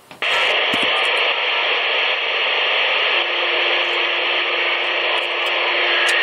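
CB radio on channel 19 (27.185 MHz) putting out a steady rush of static hiss through its speaker, starting abruptly just after the start. A faint steady low tone joins about three seconds in.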